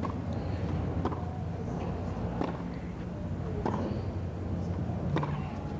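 Tennis rally on a hard court: a serve, then a string of sharp ball-on-racket strikes about a second or so apart, over a steady low stadium hum.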